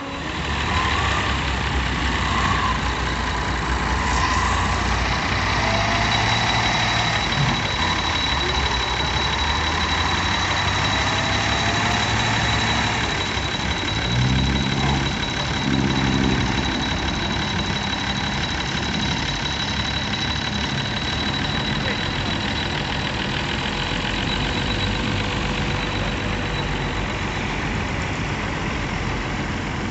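Steady rush of surf and wind with a tractor engine running underneath, its engine note strongest for a few seconds around the middle as it pushes a wooden fishing boat into the breaking waves.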